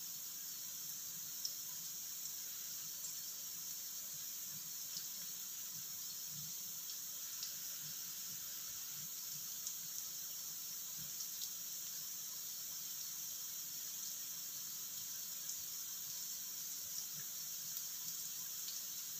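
Cubed tempe frying in a little oil in a wok: a steady sizzle with faint scattered pops.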